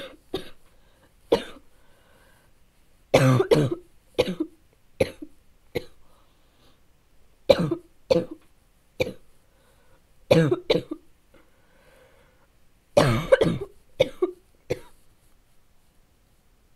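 A person's harsh, barking cough in a long fit: about a dozen coughs, singly and in quick runs of two or three, with short pauses between. The fit stops near the end.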